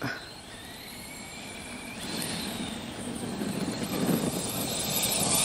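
Brushless electric motor of an RC monster truck whining and rising in pitch as the truck accelerates, with tyre noise on gravel growing steadily louder as it comes closer.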